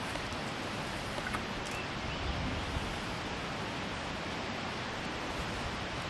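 Steady, even outdoor rushing noise with no distinct events, and a faint brief chirp about two seconds in.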